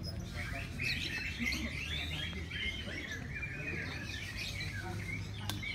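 Lovebird singing a long, fast chattering run of high chirps that starts about half a second in and fades near the end.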